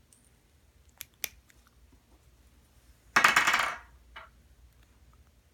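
Scissors snipping the sewing thread wrapped around a charging cable: two light clicks, then a short rasping cut about three seconds in.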